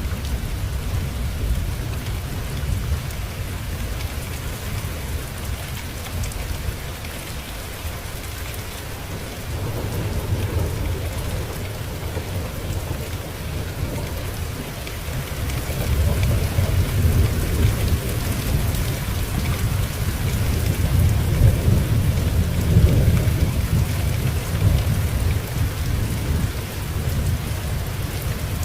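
Steady heavy rain with low rolling thunder that swells and fades, loudest about two-thirds of the way through.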